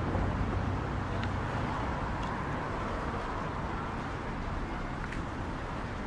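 Steady outdoor background noise with a low rumble and a few faint clicks.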